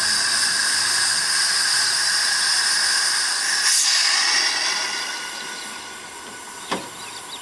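Steam hissing loudly from the replica Mary Ann vertical-boiler steam locomotive, dying away after about four and a half seconds. There is a short knock near the end.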